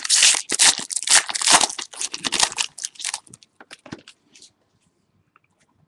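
A trading-card pack's foil wrapper being torn open and crinkled, a quick run of rustling and tearing that thins out after about three seconds and dies away.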